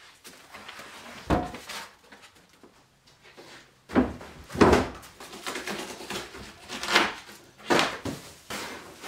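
Cardboard wrapping rustling and scraping, with irregular thuds and knocks, as a 3/8-inch aluminium plate is laid on a wooden workbench and unwrapped. The loudest knock comes about four and a half seconds in.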